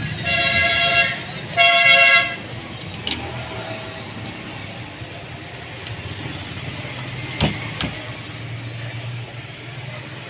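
Two honks of a vehicle horn, each about a second long, over a low traffic rumble, followed by a few sharp clicks.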